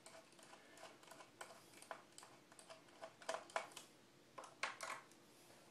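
Faint, irregular small clicks and ticks of a screwdriver working screws loose in the plastic back cover of an all-in-one computer, a few louder ones toward the end.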